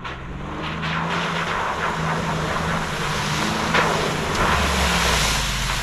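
2021 Ford Bronco First Edition's 2.7-litre twin-turbo V6 pulling under throttle through a mud patch, getting louder over the first second. A rushing hiss of tyres churning mud and water spraying against the body runs over the engine.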